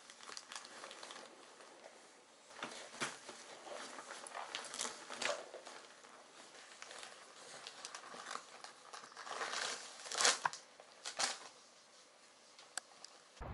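Irregular rustling and crinkling as a toddler's hands rummage in a canvas tote bag, the fabric and the plastic wipe and diaper packets inside it being pulled about. Sharper crinkles stand out about three, five and ten seconds in.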